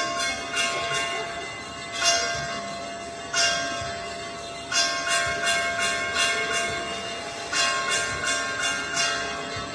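Church bells ringing a festive peal: sharp strokes, some single and some in quick runs, with the bell tones ringing on between them.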